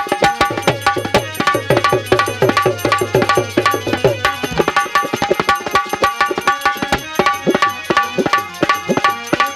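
Instrumental interlude of Bundeli khyal folk music: hand drums play a fast, dense rhythm under held melody notes. A low held note drops out about halfway through.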